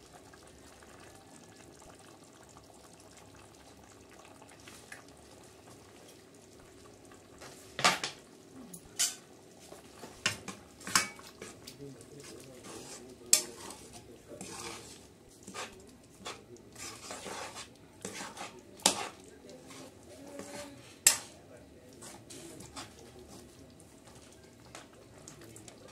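A spoon stirring a simmering stew in a metal cooking pot, with about ten sharp knocks and scrapes against the pot from about a third of the way in; before that only a low, faint background.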